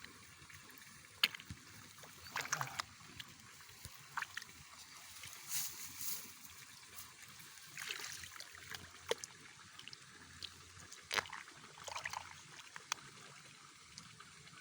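Scattered small splashes, sloshes and trickles of water and wet mud at irregular intervals, as an eel hole in a flooded rice paddy is dug out.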